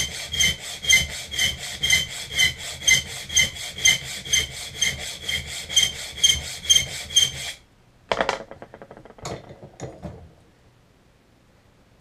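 Small hand file cutting slots into a hardened bandsaw-steel knife blade, in even back-and-forth strokes about three a second, each with a high ringing note. The filing stops about seven and a half seconds in, followed by a few short knocks and clicks.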